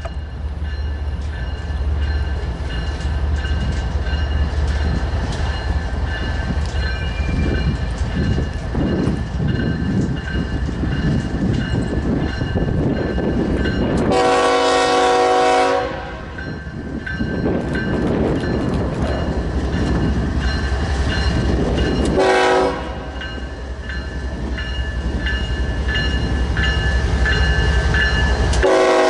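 Kansas City Southern GE ES44AC diesel locomotives leading a grain train: a steady low engine rumble that builds as the train approaches. The multi-chime air horn sounds a long blast about halfway through, a short blast about eight seconds later, and another long blast starting near the end.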